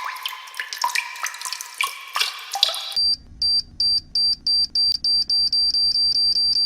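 Sound-effect run of quick water-drop plinks. About three seconds in, it gives way to rapid, even electronic beeping at about three high beeps a second.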